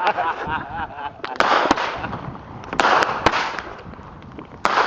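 Fireworks going off: sharp bangs with crackling hiss, a cluster about a second and a half in, two more around three seconds, and another near the end.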